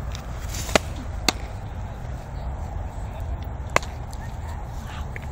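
A softball smacking into leather gloves: three sharp pops, two close together about a second in and a third near four seconds in, over a steady low rumble.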